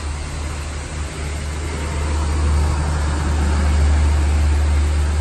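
Steady low hum of a booster pump driving a five-way mist nozzle, with the even hiss of the fine spray over it, swelling a little about two seconds in.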